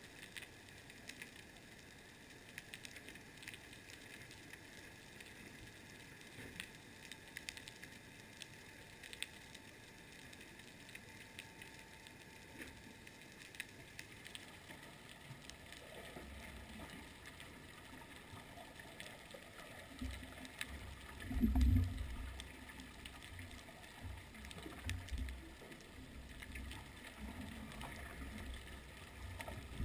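Underwater ambience picked up through a camera housing: a faint scatter of small clicks and crackles, joined in the second half by irregular low rumbling water surges, the loudest about two-thirds of the way in.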